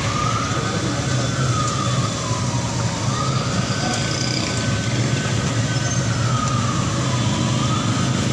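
A siren wailing slowly, its pitch rising and falling every few seconds, over a steady low hum and busy street noise.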